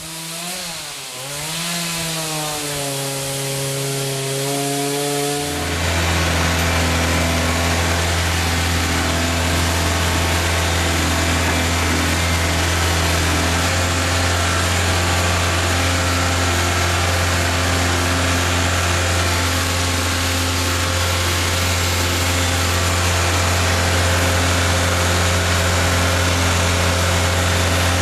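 Chainsaw engine revving, its pitch rising and falling for the first five seconds or so, then running steadily at high speed.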